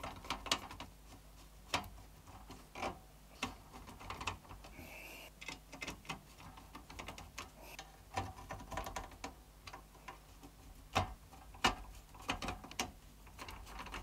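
Hand screwdriver turning screws into a metal PC case frame as case fans are fitted, with scattered irregular clicks and light knocks of screws, plastic fan frames and metal. About five seconds in there is a brief high squeak.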